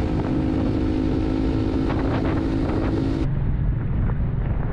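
Small motorcycle cruising at a steady speed: a steady engine drone under wind rushing over the helmet-camera microphone. About three seconds in, the engine tone drops out and a duller, gusty wind buffeting takes over.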